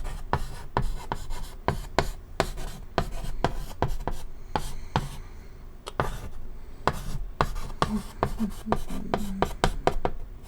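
Chalk writing on a chalkboard: a quick, irregular run of sharp taps and short scratches, several a second, as letters are stroked on.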